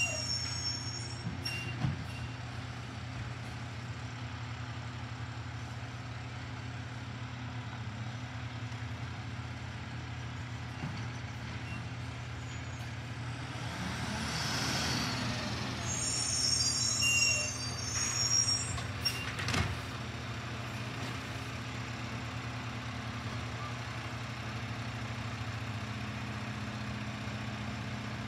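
Mack LR side-loader garbage truck running steadily with a low engine hum. About halfway through a hiss swells and fades, then high-pitched brake squeals come several times, with a couple of sharp knocks.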